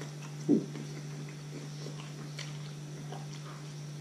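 Close-miked eating sounds: a short, loud mouth sound about half a second in, then quiet chewing with small clicks, over a steady low electrical hum.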